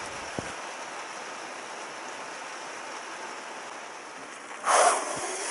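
Rain falling steadily on a camper van's roof and windscreen, with a brief, louder burst of noise near the end.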